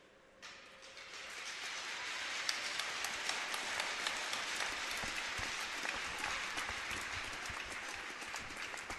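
Crowd of spectators applauding, starting about half a second in, building over a couple of seconds, then slowly easing off.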